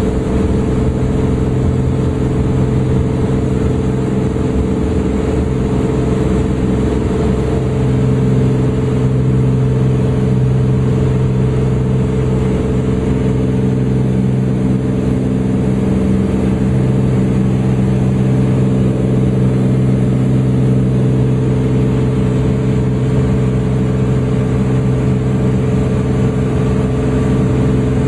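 Turbocharged Continental TSIO-550 six-cylinder engine and propeller of a Cessna 400 Corvallis running steadily at high power on the takeoff run, heard inside the cabin. The drone grows a little louder about eight seconds in.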